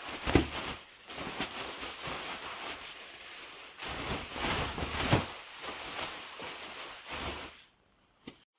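Nylon shell of an ultralight down sleeping bag (Sea to Summit Spark SP0) rustling and swishing as it is shaken out and lofted, stopping near the end.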